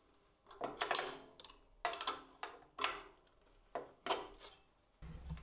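Screwdriver turning a screw to fasten a plastic workpiece stop to a belt sander: a series of short, quiet scrapes and clicks with pauses between turns.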